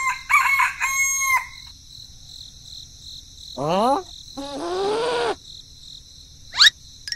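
A rooster crowing, a cock-a-doodle-doo ending on a long held note. It is followed by cartoon sound effects: a quick upward glide, a bending, voice-like sound, and near the end a short, sharp rising whistle that is the loudest sound.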